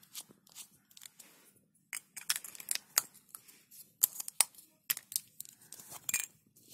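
Lipstick tubes and caps being handled: a string of small clicks and taps as a cap is pushed back on and the tubes are set down beside one another, the sharpest clicks coming in the middle.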